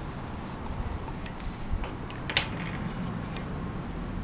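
Scattered light clicks and ticks of a screwdriver tip and fingers knocking against the metal housing and magnets of an opened ZY1020 electric motor as it is probed and turned over, the sharpest click about two and a half seconds in.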